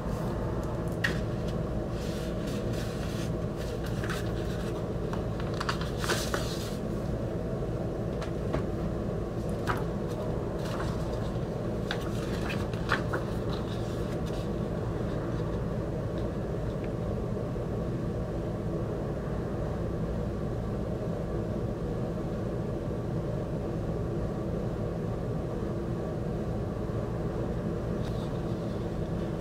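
A steady low machine hum, with paper and plastic rustling and light handling clicks during the first half as a vinyl album's printed paper insert is pulled out and handled.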